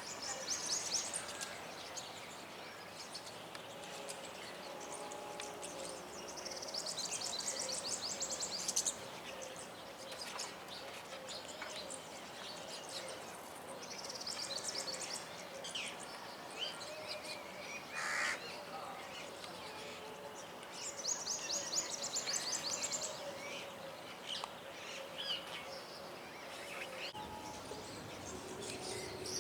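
Small songbirds singing, in several bursts of rapid high twittering a second or two long, with scattered short chirps in between.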